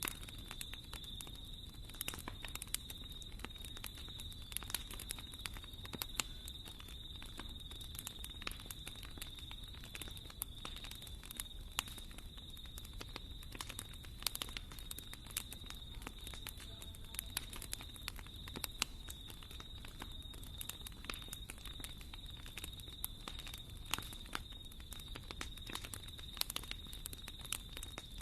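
Wood fire crackling in a fireplace: frequent sharp pops and snaps over a low steady rumble, with a steady high whistle running underneath.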